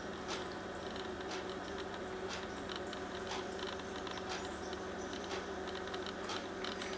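Small songbirds busy at a wire-cage feeder: irregular sharp ticks, a few each second, over a steady low hum.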